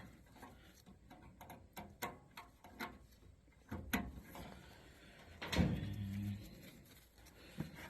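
Small clicks, taps and knocks of wire leads and connectors being handled and fitted while a replacement HVAC blower motor is wired up, with a brief low hum about five and a half seconds in.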